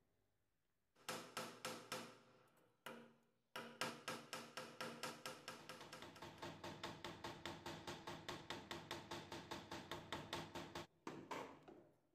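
Small hammer peening a rivet to fix a brass rosette onto the iron handle bracket of an antique bed warmer, held in a steel bench vise. A few separate ringing metal-on-metal blows come about a second in, then a rapid even run of taps, about five a second, for some seven seconds, ending with one last blow.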